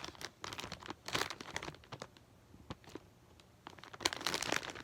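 Fidget toys being handled and taken out of a storage bin: rustling with many small clicks and knocks, quieter for about a second and a half in the middle and busier again near the end.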